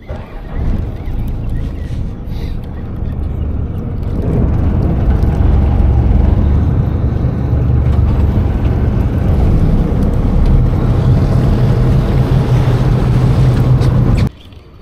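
A small fishing boat's engine running under way. It grows louder about four seconds in, holds steady, and stops abruptly near the end.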